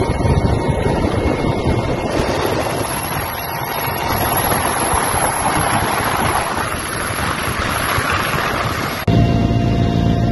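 Helicopter rotor and engine noise heard from on board, mixed with heavy wind noise on the microphone. About nine seconds in it changes abruptly to a steadier, lower engine-and-rotor drone.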